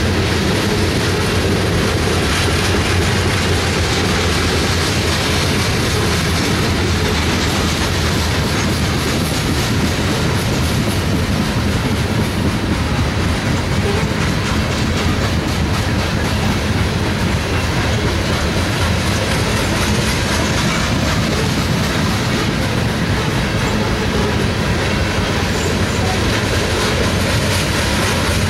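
A freight train's cars rolling past on the track: a steady, loud rumble with the wheels clicking over the rails throughout.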